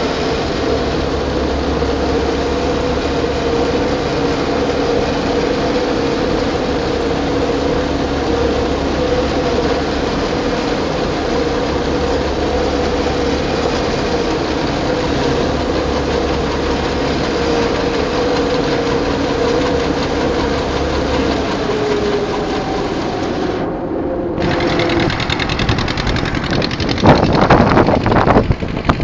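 Combine harvester running steadily with its unloading auger pouring barley into a trailer: a constant machine hum with a steady whine. About 24 s in it cuts to a louder, uneven engine and rattling noise.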